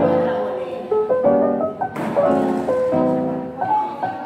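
Background music with piano chords.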